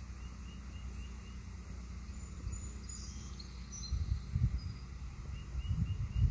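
Outdoor background sound: a steady low rumble, with louder buffeting bursts of wind on the microphone about four seconds in and again near the end. Faint, short, high chirps are scattered through it.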